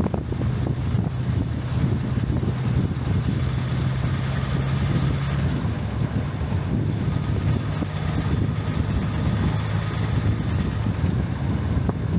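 Jaguar Mk2's straight-six engine running steadily with a low hum, its pitch shifting slightly, with wind noise on the microphone.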